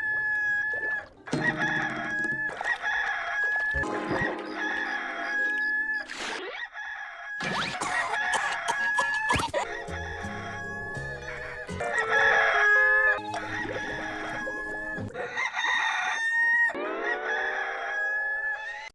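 Hollywood Edge 'Rooster 2 Crow' stock sound effect: a rooster crowing, repeated over and over in short clips that cut abruptly one into the next. In each clip other soundtrack sounds run underneath.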